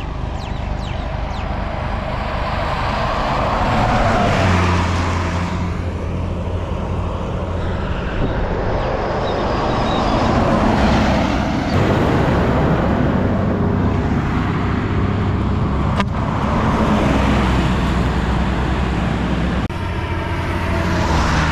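Buses and other heavy road vehicles passing one after another, a steady low engine drone under tyre and road noise that swells and fades about three times as each goes by.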